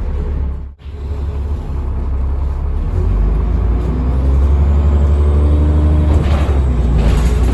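Cummins ISBe diesel engine of a Transbus Trident bus running and pulling harder from about three seconds in, with a faint rising turbo whine. The sound drops out sharply for a moment about a second in.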